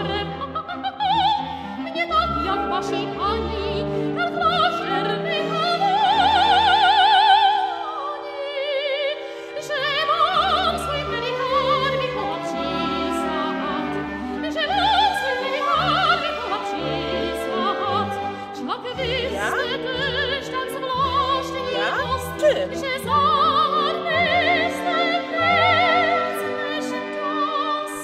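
Operatic singing with orchestral accompaniment: a solo voice holds long notes with wide vibrato over sustained strings.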